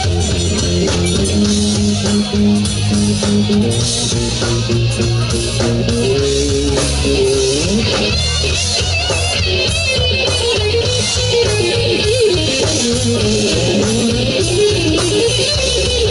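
Live southern rock band playing an instrumental passage: electric guitars over bass and a drum kit, with a guitar line that bends and wavers in pitch.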